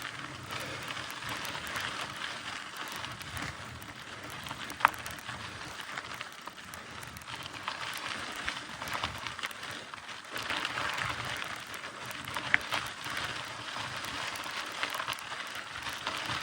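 Mountain bike riding over a dirt trail: tyres crunching on gravel and grit with a steady crackling hiss, and two sharp clicks or knocks from the bike along the way.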